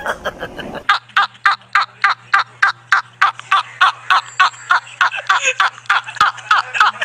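A man laughing uncontrollably in rapid, high-pitched squeals, about four or five a second, each falling in pitch, starting about a second in.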